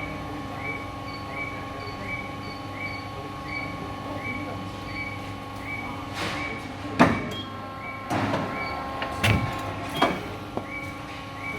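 Nagai 116 paper-cutting machine running with a steady hum and a short chirp repeating about every 0.7 seconds, then a run of loud clunks and rushing sounds from about six to ten seconds in.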